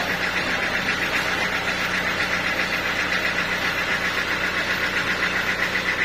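Sawmill engine running steadily with an even, rapid pulse and a low hum; the machinery is idling, not cutting.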